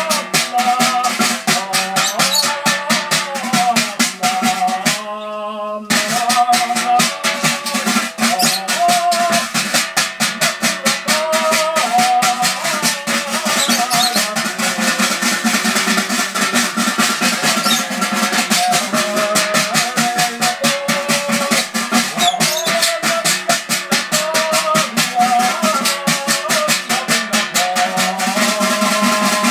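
Music led by a fast, even shaker-like rattle, with a wandering melody and a steady low drone over it. The rattle stops for about a second near the start, then resumes.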